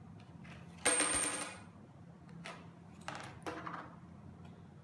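A coin drops and strikes a glass tumbler with a sharp metallic clink that rings briefly, a little under a second in. A few lighter taps and rustles of the card and glass follow.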